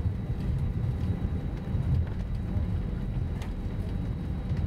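Steady low rumble of an Airbus A319 airliner heard from inside the passenger cabin, the noise of the engines and airframe with a few faint ticks.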